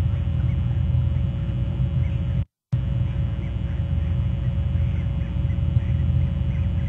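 Steady low rumble of outdoor ambience on a nest-camera microphone, with a faint steady hum and faint, scattered bird calls above it. The audio cuts out completely for a moment about two and a half seconds in.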